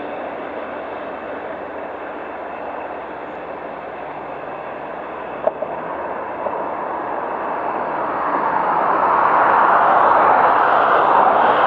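Class 6400 diesel-electric shunting locomotive working a long string of flat wagons, a steady rumble of engine and rolling wagons. Two short knocks come about halfway, and the noise swells louder in the last few seconds.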